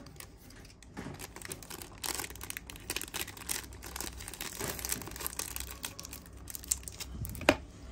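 Small irregular handling noises of Zippo lighters and their packaging being picked up and moved: light clicks and crinkling, with one sharper click about seven and a half seconds in.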